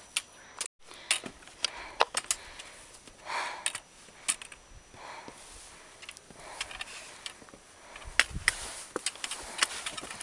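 Footsteps and scrambling on granite boulders: boots scuffing and knocking on rock, with irregular sharp clicks of gear and pole tips striking stone.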